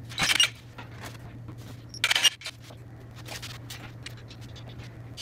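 Engine and transmission being shifted on an engine hoist: two short metallic scrapes, one just after the start and one about two seconds in, with light clinks in between, over a steady low hum.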